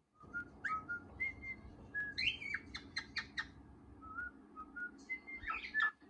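Cockatiel chick whistling and chirping: a run of short, high whistled notes broken by bursts of quick chirps, in the middle and again near the end.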